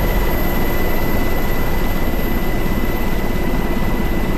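Steady roar of jet aircraft engines: a deep rumble with a thin, steady high whine over it.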